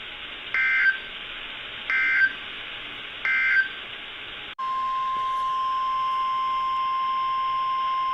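NOAA Weather Radio Emergency Alert System signalling over radio static: three short digital SAME data bursts about 1.3 seconds apart, the end-of-message code after a warning. Then, after an abrupt cut about four and a half seconds in, the steady 1050 Hz weather radio alert tone that comes before the next warning.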